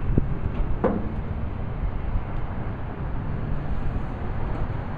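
Steady low outdoor rumble, with two light knocks near the start from a man handling a touring motorcycle loaded in a pickup bed.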